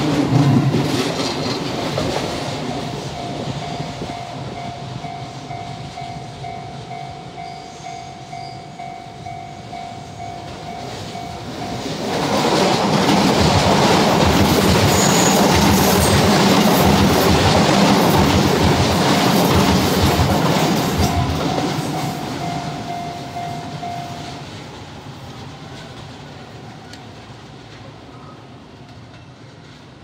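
Shin-Keisei electric commuter trains at a level crossing, with a crossing warning bell ringing as one steady tone. A passing train fades away. About 12 s in, a second train passes close by with a loud roar and its wheels clacking over the rail joints, then fades for the last few seconds.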